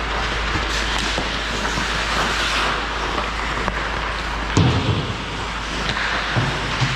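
Steady noise of a hockey game in play, with a sharp knock about two-thirds of the way through and a few dull thumps near the end.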